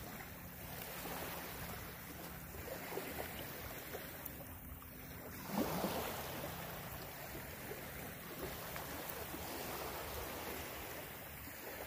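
Small waves lapping on a sandy lakeshore, with wind on the microphone, and one short louder noise about halfway through.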